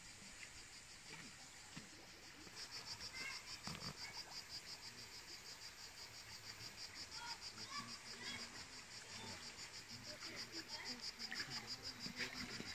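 Insects chirring in a fast, even pulse, starting about two and a half seconds in.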